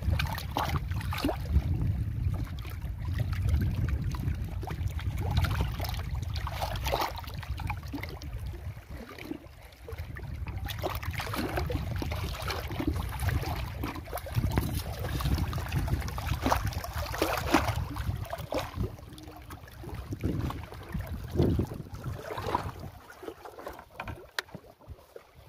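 Choppy lake water lapping and splashing, with wind rumbling on the microphone; the wind rumble drops away near the end.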